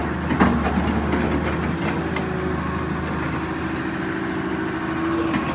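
E200B excavator's diesel engine running steadily, with a sharp knock about half a second in and a few lighter clicks.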